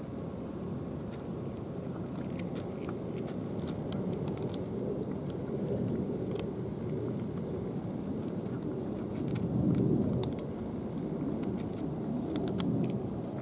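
Cats crunching dry kibble, scattered small sharp crunches, over a louder steady low rumble that swells about six, ten and twelve seconds in.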